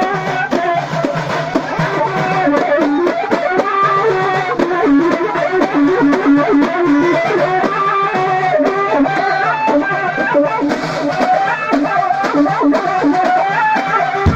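Allaoui folk dance music: a melodic lead with a steady drum rhythm underneath.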